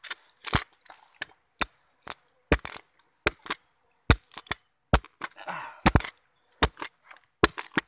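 A rapid, irregular run of sharp clicks and knocks, about three a second, with a short rustle partway through.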